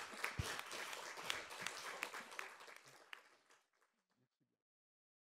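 Audience applauding, a dense patter of many hands clapping that fades out about three and a half seconds in.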